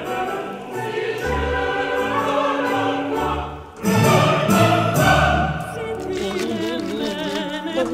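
Operatic music with choir singing. It breaks off briefly about halfway, comes back louder, and ends with a voice singing with wide vibrato.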